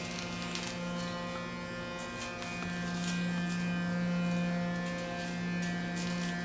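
Electric facial cleansing brush buzzing steadily as it is worked over a lathered face, its hum a little louder from about two and a half seconds in, with faint scrubbing rustles on top.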